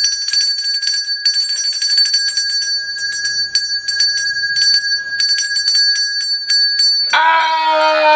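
Small handheld bell rung rapidly over and over, its clear ring hanging on between strokes. About seven seconds in the ringing stops and a person's voice lets out a long held cry.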